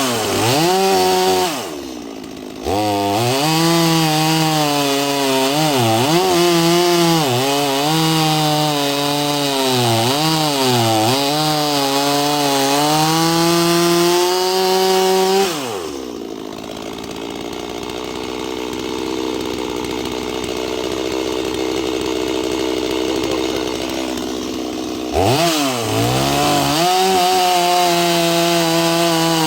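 Gas chainsaw cutting through a log, its revs sagging and recovering repeatedly as the chain bites. About halfway through it drops to idle for roughly nine seconds, then revs back up near the end.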